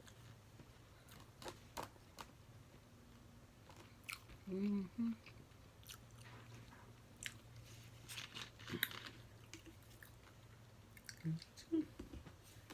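A person chewing food close to the microphone, with scattered small clicks and mouth sounds and a couple of short hummed vocal sounds, over a steady low hum.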